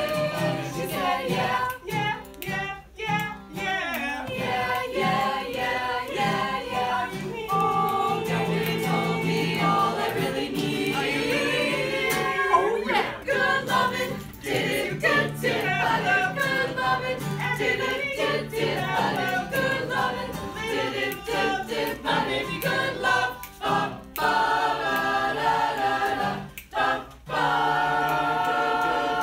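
A small mixed group of teenage girls and boys singing a song together a cappella.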